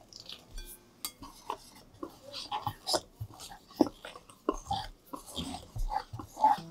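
Wire hand whisk stirring thick muffin batter in a glass bowl, its wires clicking and tapping against the glass at an uneven pace.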